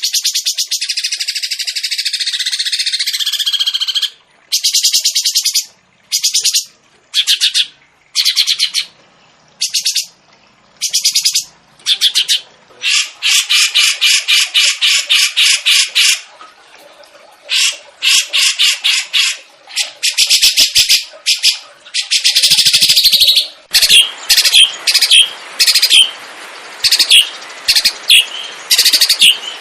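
Caged songbird song recorded as masteran (training audio for other songbirds): a long, rapid, high-pitched trill for the first few seconds, then a run of short trilled phrases separated by brief pauses, with one longer trill in the middle. Near the end the phrases turn into sharper, shorter notes over a faint hiss.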